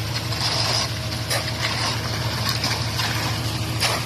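Concrete mixer truck's diesel engine running steadily, with short scraping and sloshing noises of wet concrete being worked now and then.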